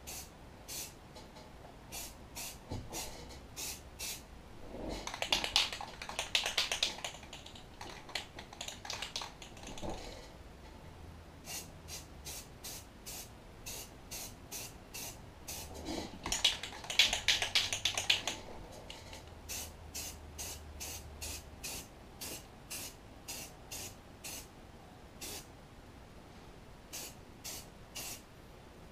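Aerosol spray can of camouflage sand paint spraying in many quick short bursts, with two longer sprays of a few seconds each, about five and sixteen seconds in. This is a light first coat going onto a plastic holster.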